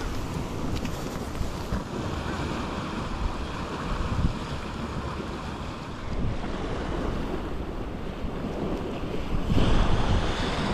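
Sea swell washing against rocks, with wind buffeting the microphone; the wind grows louder about a second before the end.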